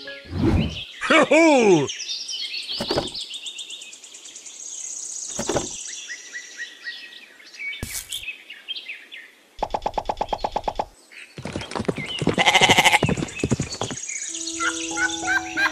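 Added farmyard sound effects: birds chirping and trilling, a few short animal calls, and a long, loud bleat from about 11 to 14 seconds in. A plinking tune in short stepped notes comes back in near the end.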